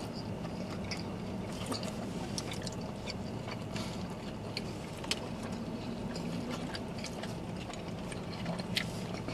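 Chewing and wet mouth sounds of people eating burritos, with scattered small smacks and clicks.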